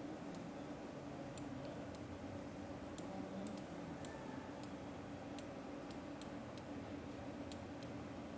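Quiet room tone: a low steady hum with faint, irregular clicks, about one or two a second.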